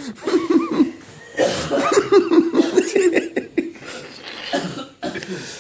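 Coughing and laughter in quick repeated bursts, with a short break about a second in and fading toward the end.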